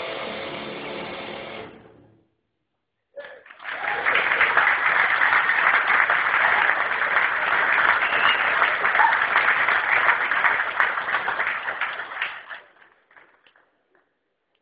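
Music ends with a held chord fading out; after about a second of silence an audience bursts into applause that runs for about nine seconds and then dies away.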